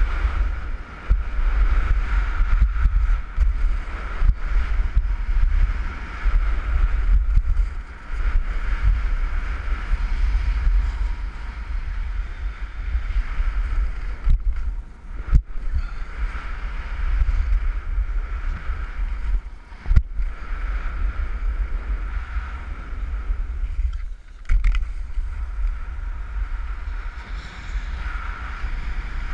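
Wind rushing over an action camera's microphone while skiing downhill fast, a steady low rumble mixed with the hiss of skis running on packed snow. A few sharp knocks come about 15, 20 and 24 seconds in.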